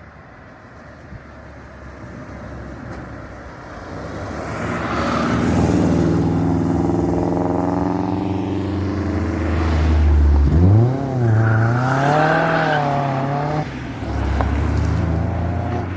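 Car engine approaching and passing, then revving hard: the pitch sweeps up sharply about ten seconds in, wavers up and down for a few seconds, drops away suddenly, and the engine carries on running.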